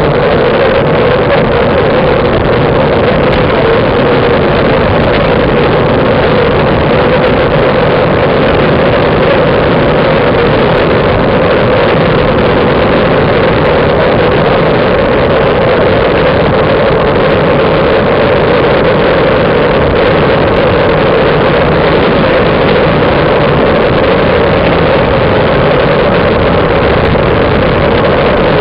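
Loud, steady wind rush on the microphone of a camera mounted on a road bicycle riding at speed, muffled and droning, with no break or change.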